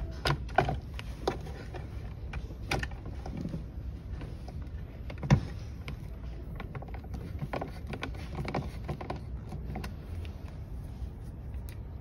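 Hand screwdriver driving self-tapping sheet metal screws into a metal extension ring: irregular small clicks, ticks and scrapes of metal on metal, with a sharper tick now and then.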